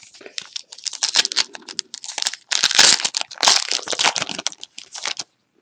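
Crinkly plastic wrapper of a trading-card pack being handled, a dense run of crackling that stops about a second before the end.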